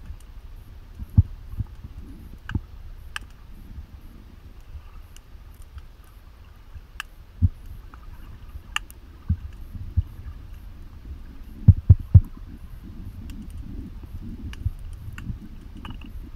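Underwater sound picked up through a camera's waterproof housing: a steady low, muffled rumble of moving water with scattered dull thuds and a few sharp clicks, the loudest a quick run of three thuds about two-thirds of the way in.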